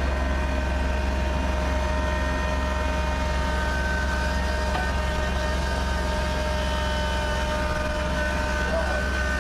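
Kubota BX2680 sub-compact tractor's three-cylinder diesel engine running steadily under load, heard from inside its cab, with a constant low rumble and a steady high whine over it.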